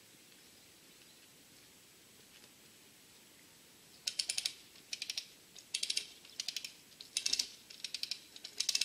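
Ratchet of a hand-operated lever puller clicking in quick bursts, about two strokes a second, as the handle is pumped to tension a chain anchored to a tree stump. It starts about four seconds in, after a quiet stretch.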